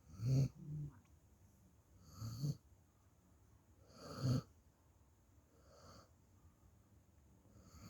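Puppy snoring in its sleep, one wheezy snore about every two seconds, the later ones fainter.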